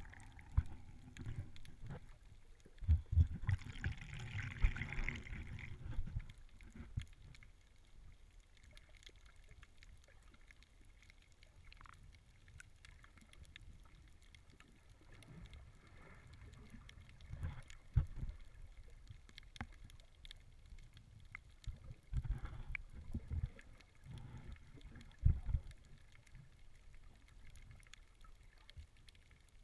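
Muffled water sound heard by a camera under the water: a burst of splashing and bubbling about three to six seconds in, then a faint hiss broken by occasional low thumps and knocks.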